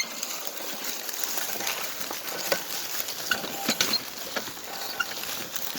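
Plastic pedal car wheels rolling over gravel, a continuous crunching with many small irregular clicks as the stones are crushed and scattered.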